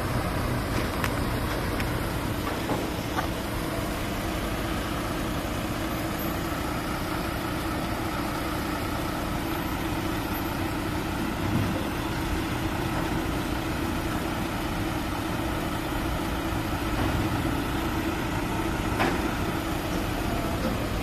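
Heavy diesel engine running steadily at a constant speed, with a few faint knocks about a second in, around three seconds in and near the end.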